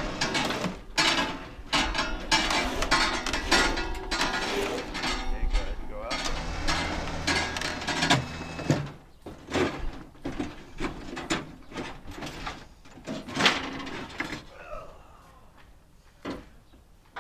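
Irregular clicking, knocking and clanking of hand tools working on the metal parts of a crated bandsaw mill head. It is busy for the first half, then thins to a few sharp clicks before stopping near the end.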